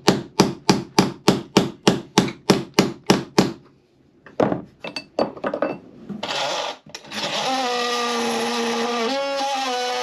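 Fast, even hammer blows on a steel punch, about five a second, driving copper fastenings out of a boat's wooden frame, then a few scattered knocks. About six seconds in, a cordless DeWalt oscillating multi-tool starts with a short burst, then runs steadily, cutting the leftover copper fastenings flush.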